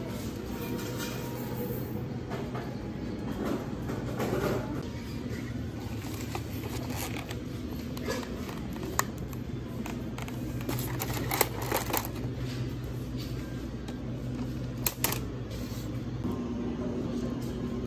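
Steady low hum of a grocery store, with sharp clicks and crinkles of a plastic-wrapped egg pack being picked up and set down in a plastic shopping basket, loudest in a few snaps near the middle and about three-quarters of the way through.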